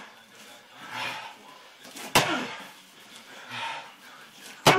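Two sharp smacks of a bare-footed kick landing on a handheld kick shield, about two and a half seconds apart, the second near the end.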